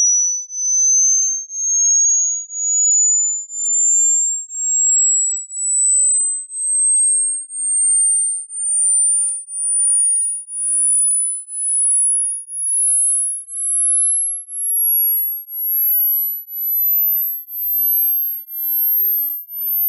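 Hearing-test tone: a single pure sine tone pulsing about once a second, each pulse slightly higher than the last, climbing steadily from a high whistle toward the top of the hearing range.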